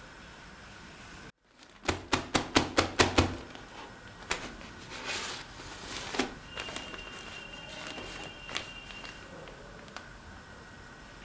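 Handling noise from a laptop motherboard being picked up and moved on a table: a quick run of about eight sharp clicks just after a momentary dropout, then rustling and a few light knocks, with a faint high whine in the middle.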